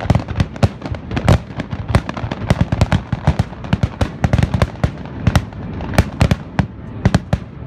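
Aerial fireworks shells bursting in a rapid barrage, several sharp bangs a second, loud and continuous.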